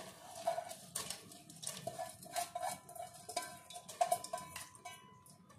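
Irregular metallic clinks and knocks of a utensil against an aluminium pressure cooker, each with a short ringing tone, several a second, thinning out near the end.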